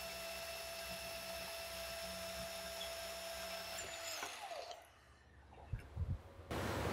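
DeWalt cordless portable band saw cutting through the old cast-iron flange ear, running steadily, then the motor winds down about four seconds in as the cut finishes. A few knocks and a short burst of noise follow near the end.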